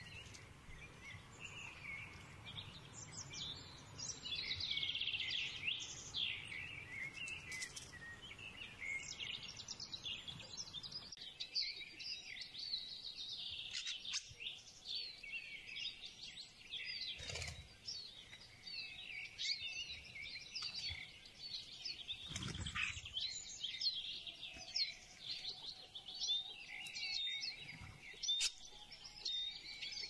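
Wild songbirds chirping and twittering in a dense, continuous chorus of quick high calls, with a couple of dull thumps around the middle.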